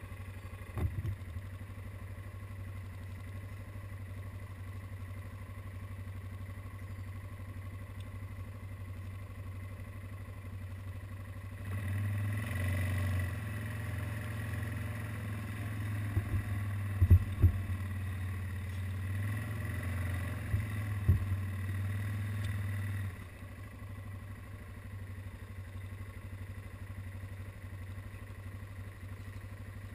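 Yamaha ATV engine running at a steady low idle. From about twelve seconds in it runs louder for some ten seconds, as under throttle, with several sharp knocks, then drops back to idle. There is a single thump about a second in.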